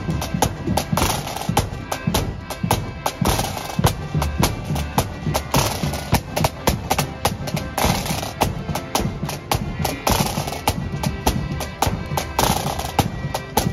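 Marching accordion band playing a tune: accordions holding the melody over rapid snare drum strokes and a bass drum beat.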